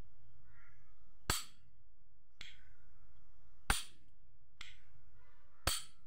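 Zippo lighter's hinged metal lid being flicked open and snapped shut: five sharp metallic clicks about a second apart, every other one louder.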